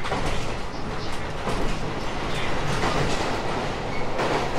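JR East 719 series electric multiple unit running along the track: a steady rumble and hiss of wheels on rail, with wheel clicks over rail joints at irregular intervals.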